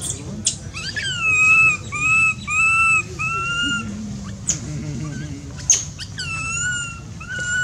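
Baby long-tailed macaque crying: four high, wavering whine-calls in quick succession, each about half a second long, then two more calls later on. A couple of short sharp clicks fall between them.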